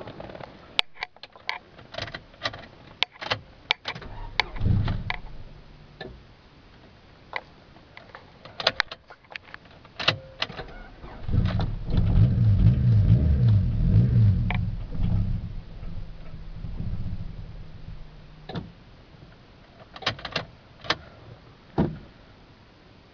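1999 Honda Civic's starter cranking the engine for about four seconds, with a short crank earlier, and the engine not catching: a no-start. Scattered clicks and knocks come before and after.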